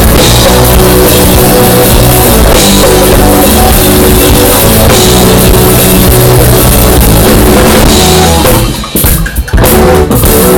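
Live band playing loud: drum kit with bass drum, bass and guitar. A little over eight seconds in, the band breaks into short stop-time hits, then comes back in.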